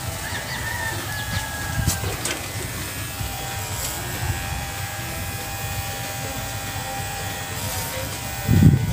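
Cordless electric pet clipper running steadily with a low motor hum as it trims a Shih Tzu's fur. A short, louder low sound comes near the end.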